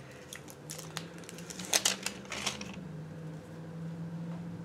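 Scattered light clicks and taps from handling a highlighter's packaging, with a quick cluster of sharper clicks around the middle, over a faint steady low hum.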